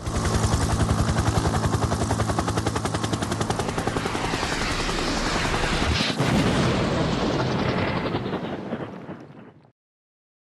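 A fast, continuous rattle of sharp pulses over a steady low drone, like automatic gunfire or a rotor, changing around six seconds in and fading out about nine and a half seconds in.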